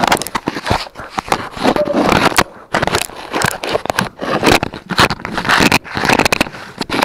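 Puppies chewing on a small action camera right against its microphone: a dense, irregular run of loud clicks, scrapes and crackles of teeth on the plastic housing.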